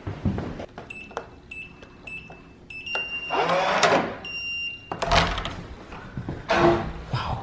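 A run of short electronic beeps at one high pitch, about two a second, then a longer beep, together with the rattle and thumps of a metal-handled door being pulled open.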